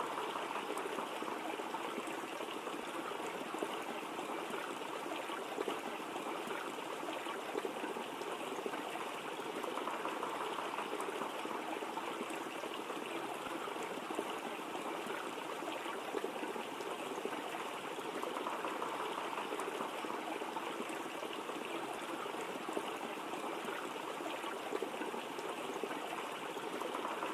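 Waterfall: a steady rush of falling water, swelling slightly now and then.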